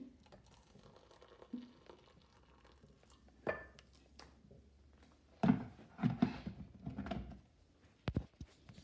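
Hot water from an electric kettle poured faintly into mugs, then a run of knocks and clatter as the kettle and mugs are handled on a hard worktop, ending in a sharp click near the end.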